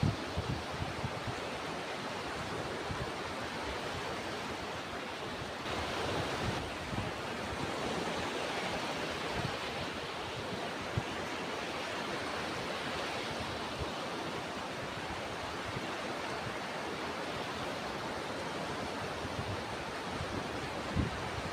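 Ocean surf washing steadily, with one wave swelling louder about six seconds in and a few low thumps of wind on the microphone.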